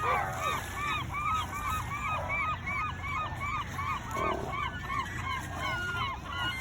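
A flock of gulls calling, many short rising-and-falling cries overlapping, about three a second.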